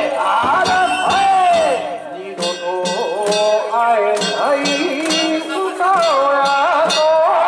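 Danjiri festival float music: rapid drum and bell strikes under a sliding, wavering melody line, played without a break as the float is pulled along.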